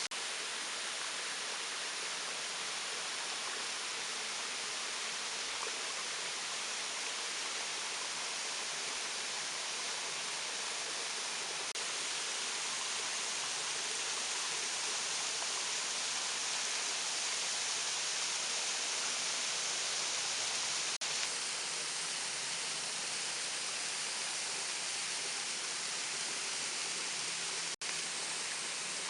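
Waterfall rushing steadily, a dense, even hiss of falling water, briefly cutting out twice in the last third.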